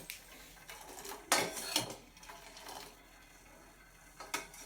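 Metal spoon clinking and scraping against a cooking pot while stirring brewing black coffee: a few sharp clatters, the loudest about a second and a half in and another near the end.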